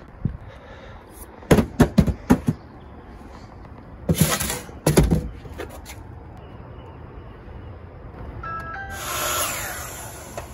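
Knocks and thuds of a cardboard box being carried and set down on concrete, the two heaviest about four and five seconds in. Near the end a short swelling music sting with stepped notes builds and cuts off suddenly.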